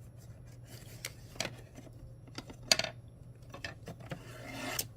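Small clicks and taps of beads and tools being handled on a work surface, with one sharper click about three seconds in and a rustling scrape near the end, over a faint steady low hum.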